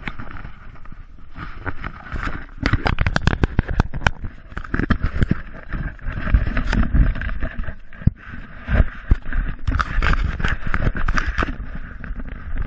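Footsteps and scuffs on stone steps, heard through a body-worn action camera, with the camera rubbing and knocking as it jolts along. Dense irregular knocks and scrapes over a low rumble.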